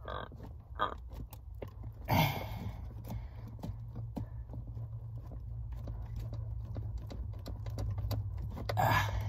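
Irregular metallic clicks and knocks of hand tools working a stuck nut off a car door handle inside the door panel, with one louder clank about two seconds in.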